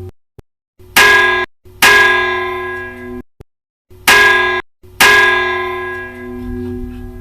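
A church bell of the Old Cathedral of Santa María in Vitoria struck four times, each stroke ringing out and fading slowly. The ringing is broken by sudden dead-silent gaps between some strokes.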